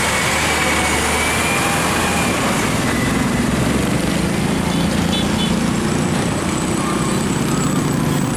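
A DAF CF tractor unit's diesel engine and tyres as the loaded truck drives past close by and pulls away, a steady heavy running with a faint high whine over it.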